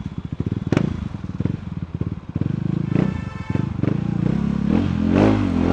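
KTM Duke 390's single-cylinder engine running through its stock exhaust, with a sharp pop about a second in. Near the end the engine note rises and falls as the throttle is worked.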